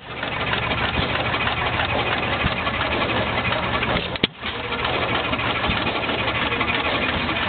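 Small hit-and-miss stationary gasoline engine running, under a steady noisy background of other engines.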